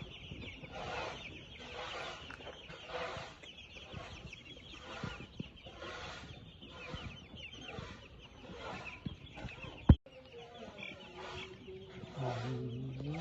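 Chickens clucking, with a call every half second to a second, and a single sharp click about ten seconds in.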